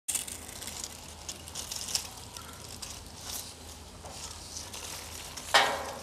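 Handheld pump-pressure garden sprayer spraying grapevine leaves in short hissing squirts. The loudest squirt comes about five and a half seconds in.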